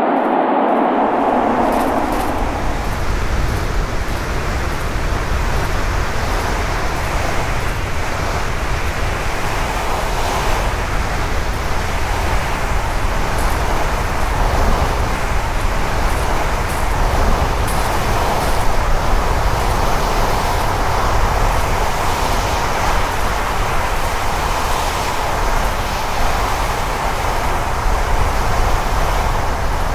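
Wind blowing over the microphone: a loud, continuous rushing noise with a heavy low rumble that swells and eases unevenly.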